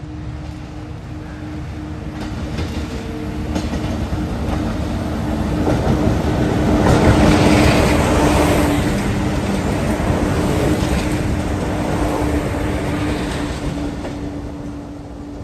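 Several WAG-7 electric freight locomotives passing close while working uphill: a steady hum under the rumble of the train, building to a peak about halfway through and then easing off.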